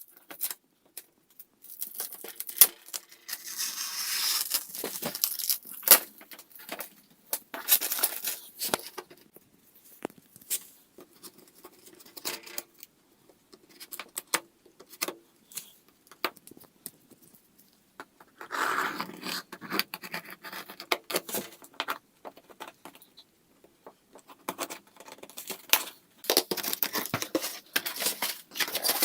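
Microwave oven packaging being handled and opened: plastic and cardboard tearing, crumpling and scraping in irregular bursts, with scattered sharp clicks and knocks.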